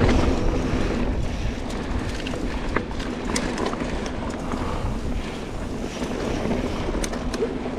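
Mountain bike descending a dirt trail: wind rushing over the microphone and tyres rolling on dirt, with scattered clicks and knocks from the bike rattling over bumps and a faint steady buzz underneath.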